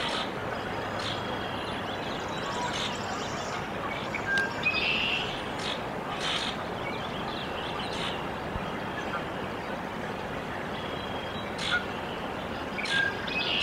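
Canada goose goslings peeping in scattered short, high chirps over a steady outdoor background hiss.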